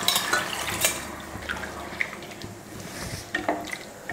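Mutton stock poured from a pot into a pan of fried mutton curry base, a splashing pour that is loudest for about the first second and then tails off, with a few light knocks near the end.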